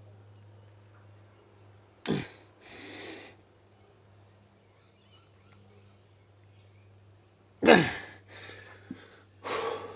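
A man breathing hard from exertion: a few sharp, forceful exhales and inhales, the loudest about two seconds in and near the end, over a steady low hum.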